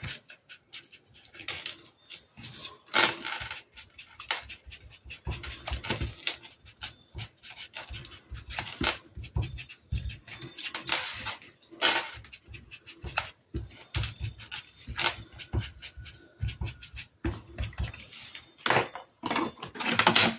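Foam ink blending tool rubbed and dabbed over the edges of kraft-paper frames, applying brown ink in many short, irregular swishing strokes on paper.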